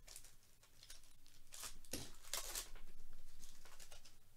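A foil baseball-card pack wrapper being torn open and crinkled by hand: a string of short rips and rustles, busiest in the second half, with a soft knock about two seconds in.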